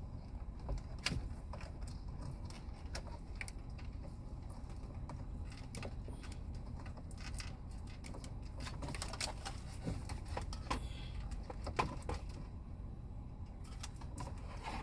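Scattered small clicks and rattles of hand tools and dashboard plastic as the car radio is worked loose, over a steady low hum.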